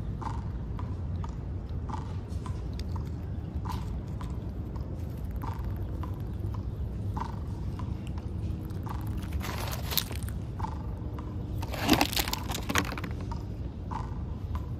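A squirrel at in-shell peanuts by a plastic tray, with two louder bursts of crunching and rustling about ten and twelve seconds in. Under it runs a steady low hum and a soft tick about once a second.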